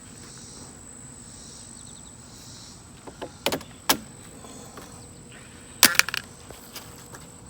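A few sharp knocks during dock repair work: two single knocks past the middle and a louder rapid cluster near the end. Under them runs a steady high insect drone over a faint outdoor hiss.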